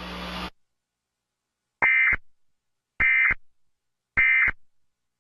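Emergency Alert System end-of-message signal: three identical short bursts of digital data tones, evenly spaced a little over a second apart, closing the tornado warning broadcast.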